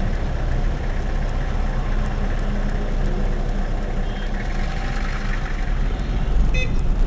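Car engine idling steadily, heard from inside the cabin, with passing street traffic including a flatbed semi-trailer truck crossing in front. A short high-pitched squeak comes near the end.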